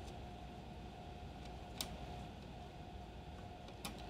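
Two faint clicks of small screws being set by hand into the circuit board's standoffs, one about two seconds in and one near the end, over a quiet steady hum.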